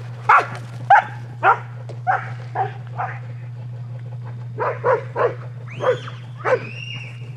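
A dog barking repeatedly, about two barks a second, with a pause around four seconds in, then a few longer, higher-pitched yelping barks near the end, typical of a dog excited during a game of fetch.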